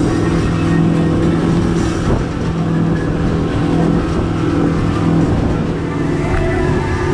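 Outboard motor running at steady high speed as the boat planes across open sea, with the rush of water and spray against the hull.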